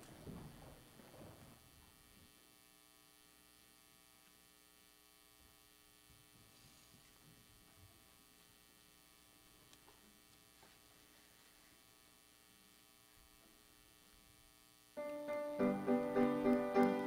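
A quiet, steady electrical hum with faint shuffling. About two seconds before the end a piano begins playing the introduction to a hymn, its notes struck several times a second and much louder than the hum.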